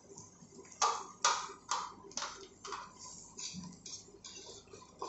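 Light handling noises at a kitchen stove: a run of five sharp clicks about half a second apart, then fainter rustles and taps.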